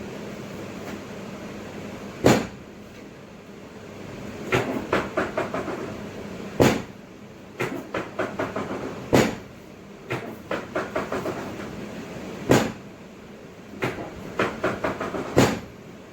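Runs of quick clicks, each ended by a single sharp knock, repeating about every three seconds, with five loud knocks in all.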